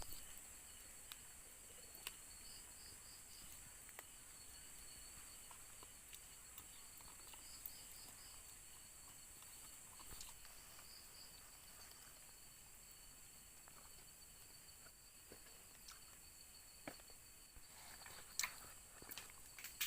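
Crickets and other night insects calling: a steady high-pitched drone with a pulsing trill now and then. A few faint clicks and taps, sharper near the end.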